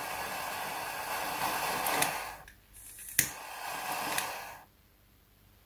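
Jet lighter flame burning with a steady hiss under an LED bulb's circuit board, heating it to melt the solder and seat a new SMD LED. The hiss stops about two and a half seconds in, a sharp click relights it, and it burns for about another second and a half.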